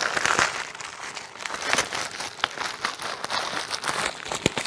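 A plastic accessory bag crinkling and rustling as it is handled and opened, with many sharp little clicks.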